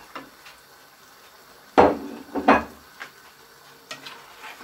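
A spoon knocking and scraping against a pot as meat is stirred into a thick stew. Two sharp knocks come a little under two seconds in, about half a second apart, with lighter taps later.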